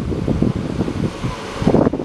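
Wind buffeting the microphone: an irregular, gusty low rumble.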